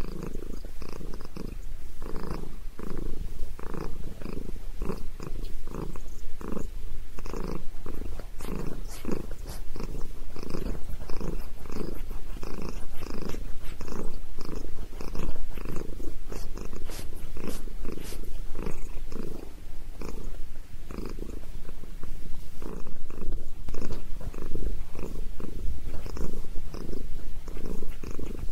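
Domestic cat purring steadily and loudly right at the microphone, a rhythmic rumble pulsing about twice a second with each breath in and out, the purr of contentment while her head is being massaged.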